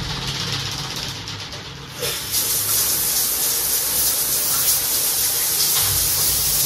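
Shower running in a tiled stall, water spraying with a steady hiss that gets louder and brighter about two seconds in.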